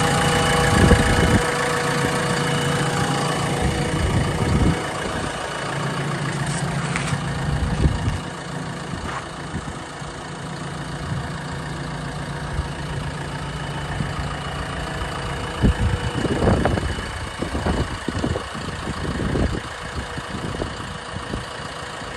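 Diesel engine of a JCB 3DX backhoe loader idling steadily, settling quieter about eight seconds in. Near the end comes a run of sharp knocks and clunks.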